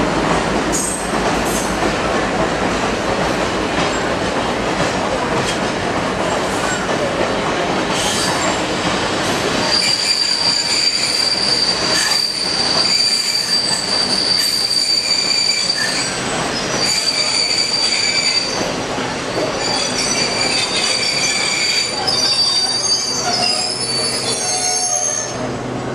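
Passenger train cars rolling on the rails with a steady rumble. About ten seconds in the rumble thins, and a high, steady steel-wheel squeal sets in. The squeal breaks off and returns a few times, with a second, lower squeal near the end.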